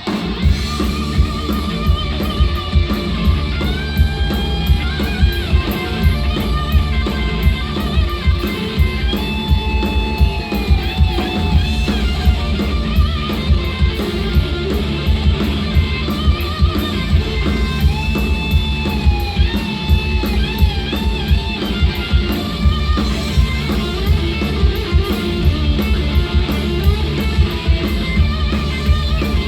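Live rock band playing an instrumental passage: an electric guitar lead with bent, wavering notes over a steady drum beat and bass.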